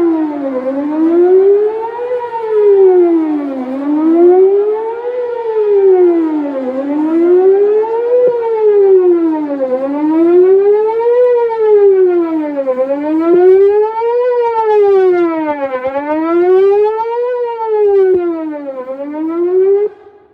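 Whelen WPS 4008 electronic outdoor warning siren sounding its Best Possible Protection tone: a loud wail rising and falling about once every three seconds. It cuts off shortly before the end.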